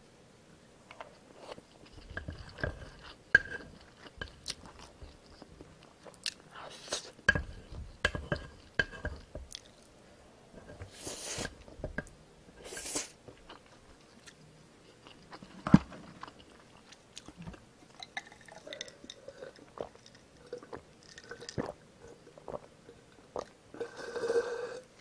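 Chewing and biting of stir-fried instant noodles, with scattered wet mouth clicks and the wooden spoon scraping and tapping on the plate. Swallowing gulps from a drink near the end.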